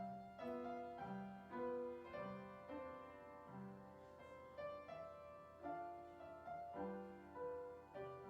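Soft instrumental background music: a slow melody of struck notes that ring and fade, over deeper notes about once a second.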